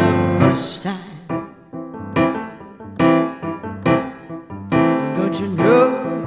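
Music: a song's piano playing a series of struck chords, each ringing out and dying away.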